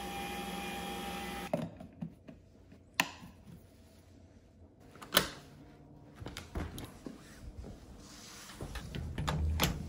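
Nespresso Vertuo coffee machine running with a steady whir and hum, stopping about a second and a half in. After it, a string of sharp clicks and knocks from a stainless travel mug being handled, the loudest about five seconds in, and a low thump near the end.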